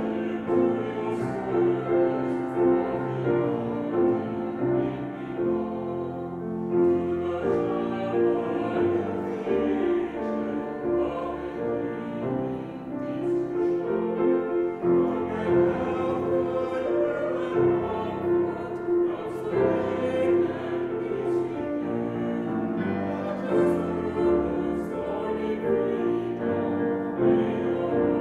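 A hymn played on a grand piano.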